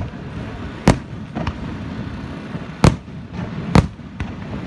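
Fireworks exploding: three loud, sharp booms at irregular spacing, about a second in, near three seconds and just before four seconds, with fainter bangs between them.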